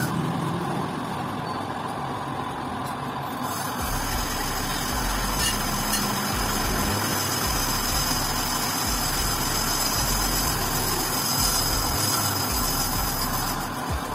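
Metal lathe running steadily, spinning a motorcycle rear wheel by its brake drum hub while the drum is machined to take a brake sleeve. A higher whine and a deeper hum join about four seconds in.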